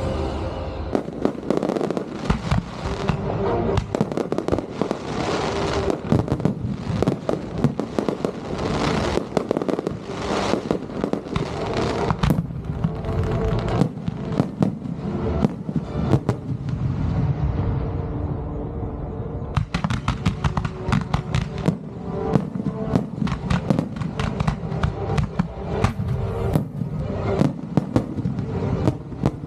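Aerial firework shells launching and bursting in a rapid barrage of many overlapping bangs and crackles over music. The bangs thin out for a couple of seconds just past the middle, then pick up again.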